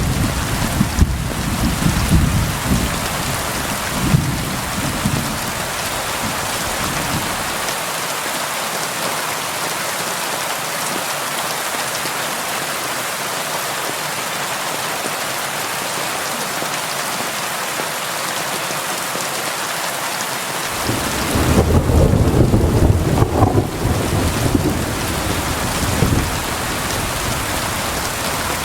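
Heavy rain pouring steadily, with thunder rumbling low in the first several seconds and again in a longer roll about three-quarters of the way through.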